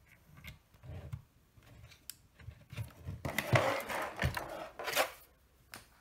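Handling noise of a USB cable and a plastic keyboard being fitted together to plug in: scattered light taps and rustling, a louder scuffling stretch after the middle, and a couple of sharp clicks near the end.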